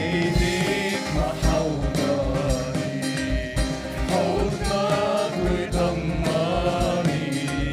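Church worship band and a group of singers on microphones performing a Christian worship song, several voices singing together over instruments with a steady beat.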